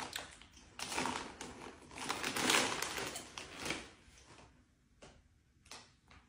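A crinkly plastic snack bag rustling and crackling as a hand rummages in it for chips, irregular and stopping about four seconds in; a couple of faint ticks follow.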